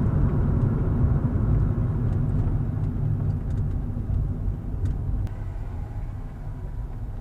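Car's low engine and road rumble, fading steadily as the car slows down and comes off the road.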